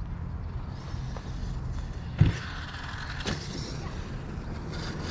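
Large electric RC monster truck driving over rough dirt, with a sharp loud thud about two seconds in and a smaller knock a second later, typical of the truck landing and bouncing.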